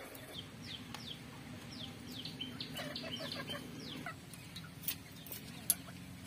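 Chickens clucking and chirping, with a quick run of short high calls falling in pitch in the middle. A few sharp clicks come near the end.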